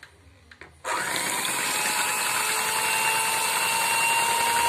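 Electric hand mixer switched on about a second in, then running steadily with a constant whine as its beaters whip egg whites.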